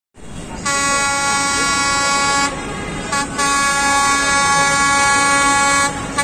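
Locomotive air horn on an approaching Bangladesh Railway express train, sounding a steady multi-note chord: a long blast of about two seconds, a short toot, then a longer blast, with a brief toot near the end. A low rumble of the approaching train sits under it.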